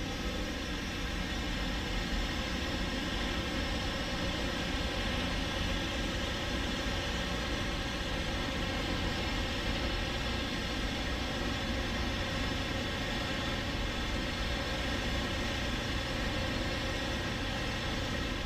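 Quadcopter drone's propellers humming steadily in flight, a level whine made of many even tones over a low rumble.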